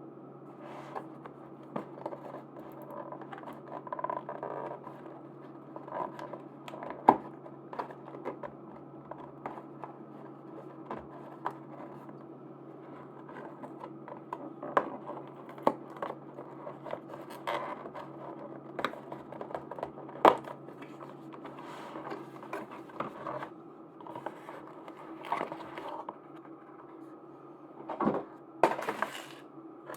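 Hands handling and opening merchandise packaging: scratching, crinkling and scraping of plastic with many small sharp clicks and taps, over a steady low background hum.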